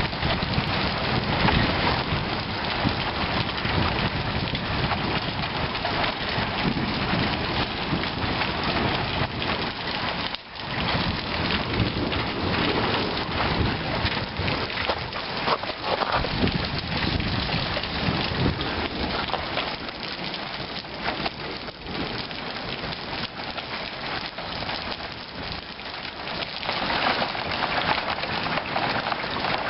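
Hail and rain pelting down in a storm, a dense, continuous clatter of hailstones striking surfaces.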